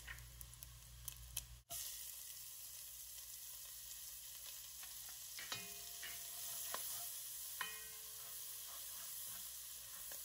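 Minced onion sizzling in hot rendered bacon fat in a frying pan. A utensil clicks and scrapes against the pan a few times as it is stirred, in the second half.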